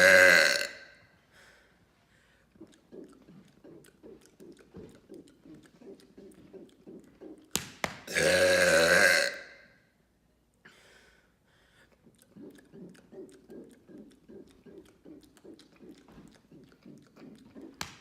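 A man's deliberate loud burps: one ends just as the stretch begins, and a second, long burp of about two seconds comes around eight seconds in. Between them are quieter, rapidly repeated low sounds.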